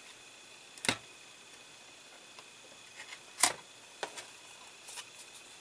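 A few sharp clicks and taps from small model parts and a screwdriver being handled while a small screw is fitted. The loudest click comes about three and a half seconds in.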